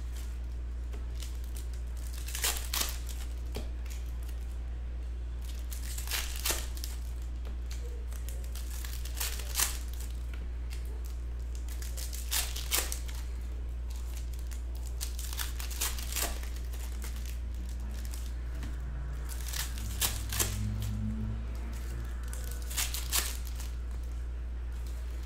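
Panini Prizm foil trading-card packs crinkling and tearing as they are ripped open by hand, in short crackles, mostly in pairs, every three to four seconds, over a steady low hum.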